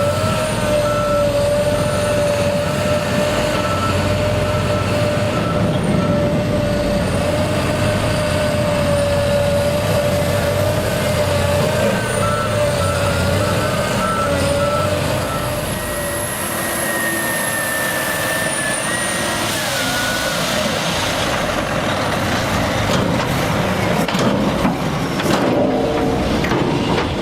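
Heavy construction machinery running steadily, with a reversing alarm beeping in short regular pulses early on and again midway.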